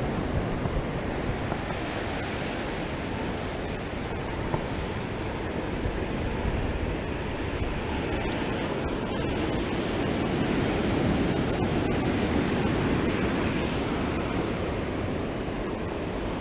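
Ocean surf washing onto a sandy beach, a steady rush of noise that swells slightly around ten seconds in, with wind on the microphone.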